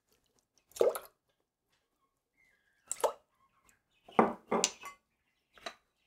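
Soy sauce spooned into an empty stainless steel pot: several short, separate splashes and drips, the loudest pair a little over four seconds in.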